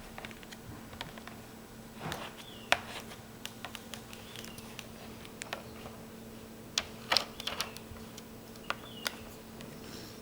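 Scattered light clicks and short scrapes of a plastic credit card being worked over a screen protector on a laptop screen, pushing out air bubbles. A faint steady hum runs underneath.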